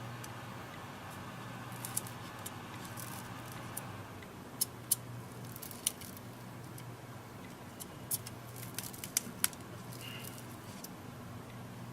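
Small sharp clicks and taps of tools and tablet parts being handled during a tablet screen replacement, scattered and clustering in the middle of the stretch, over a steady low hum.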